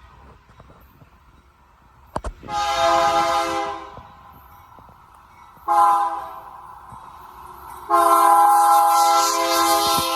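CSX freight locomotive's air horn sounding a long blast, a short blast, then another long blast: the closing part of the long-long-short-long warning for a grade crossing.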